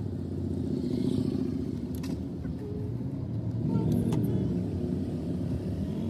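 A car's engine and road noise heard from inside the cabin while driving, a steady low rumble, with a couple of light clicks.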